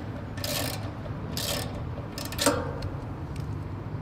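Spanner loosening the nuts on the underside of a steel satellite-dish azimuth mount: three short bursts of metal-on-metal ratcheting, the last ending in a sharp click about two and a half seconds in.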